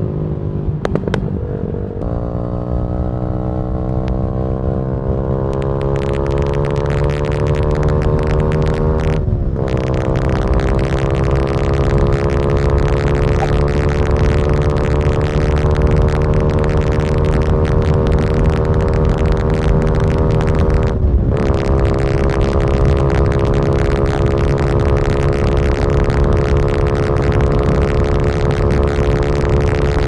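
Single-cylinder four-stroke engine of a Yamaha R125 with a Malossi 180 cc kit, ridden under load: its pitch climbs slowly as it pulls through each gear, with brief dips as it shifts up about nine seconds in and again about twenty-one seconds in.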